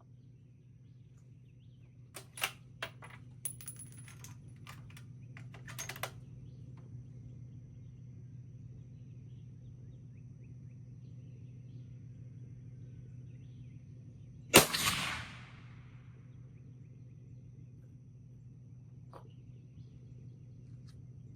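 A run of sharp clicks and clacks for a few seconds, then a single suppressed .22 Creedmoor rifle shot a little past halfway, its report trailing off over about a second and a half.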